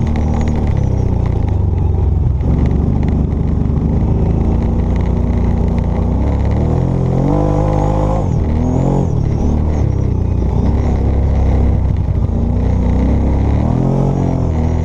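ATV engine running under load on a rough trail, its pitch rising and falling as the throttle opens and closes, with a clear climb about seven seconds in and another near the end.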